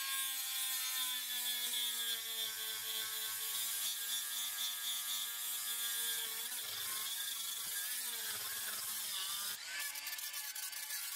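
Hand-held rotary tool with a small abrasive sanding drum spinning and grinding an oak knife handle where it meets the blade: a steady motor whine over a grinding hiss. Its pitch drifts slowly down and wavers a couple of times midway.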